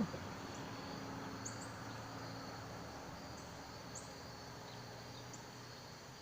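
Outdoor insect ambience: a steady high trill with short, higher chirps every second or so, over a faint low hum.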